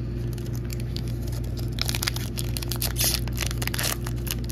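Foil Pokémon booster pack being torn open and crinkled in the hands: a dense run of crackles and tearing starts about two seconds in and is loudest near the end, over a steady low hum.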